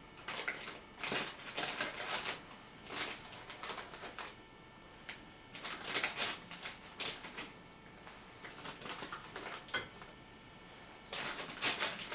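Bursts of light tapping, clicking and scraping, coming in several short clusters with pauses between: powdered rosin being taken off a balance a little at a time to bring it down to 4 grams.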